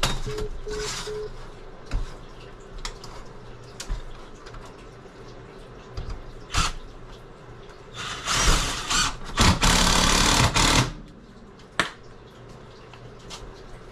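Scattered clicks and knocks of tools and parts being handled, then a small power tool running in two short loud bursts about eight seconds in.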